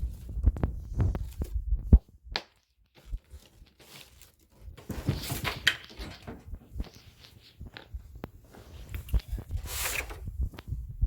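Handling noises: low thumps, knocks and rustling as small plastic glitter containers are gathered up, with a nearly silent gap about two seconds in.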